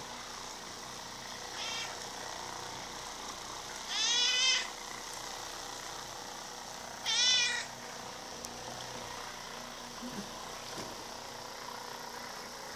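A large domestic cat meowing while an electric massager is run over its back: one short faint meow, then two loud meows about three seconds apart, over the steady hum of the massager's motor.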